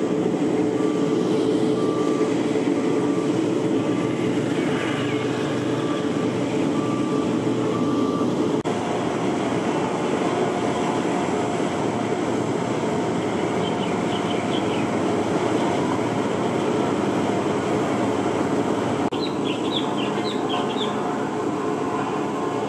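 Diesel engines of heavy road-construction machines running steadily. A reversing alarm beeps about once a second for the first eight seconds.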